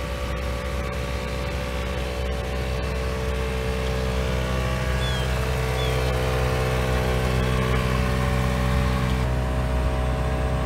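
ARB CKMA-12 onboard air compressor running steadily, a constant motor hum, while it supplies air to a tire through the hose and inflator.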